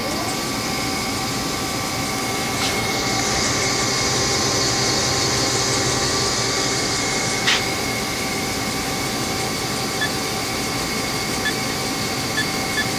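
Haas HL-2 CNC lathe spindle, with its empty 8-inch chuck, spinning up to 1,000 rpm at the start and then running steadily: a machine hum with a steady whine. A brighter hiss joins from about three to seven and a half seconds in, starting and stopping with a click.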